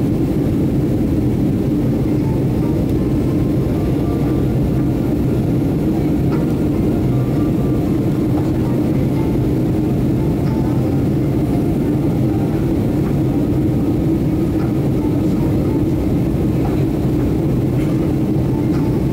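Steady cabin noise of a Boeing 737-800 airliner climbing after takeoff: its CFM56 jet engines and the rushing airflow make an even, low rumble and hiss that holds without change.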